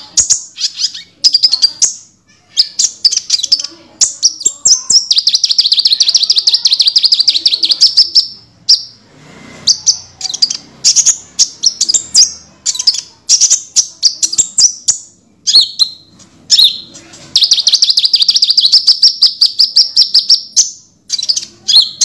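Sunbird (burung konin) song: loud, high, rapid chirps broken by two long, very fast trills, one about five seconds in and one near the end.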